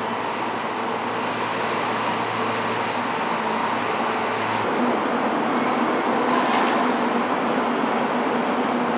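Steady running noise of cargo-handling vehicles on a ro-ro ship's steel vehicle deck: a tractor towing a roll trailer loaded with drums, then a forklift working close by. A low hum stops about halfway through, and there is one short knock near the end.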